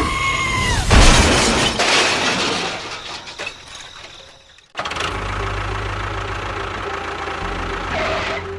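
A loud crash about a second in that fades away over a few seconds, then an engine starts up abruptly near the middle and runs steadily.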